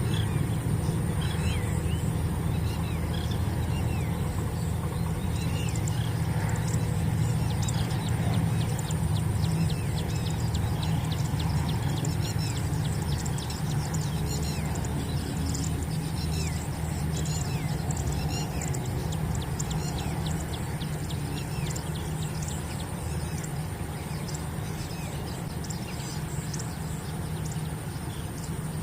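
A steady low rumble, like wind on the microphone or an engine running, with faint bird calls and chirps over it, a run of rapid ticking through the middle, and a thin steady high tone.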